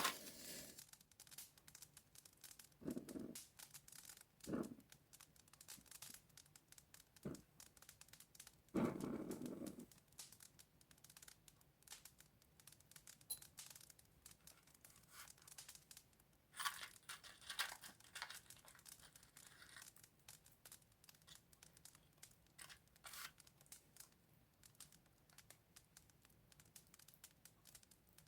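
Matches being struck and burning: a few short scratchy rasps, a longer one about nine seconds in, and faint crackling, with a couple of louder scrapes around seventeen seconds.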